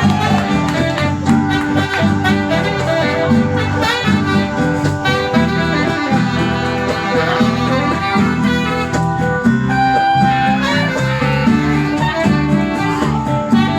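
A band playing an instrumental passage, with held melody notes over a repeating bass line.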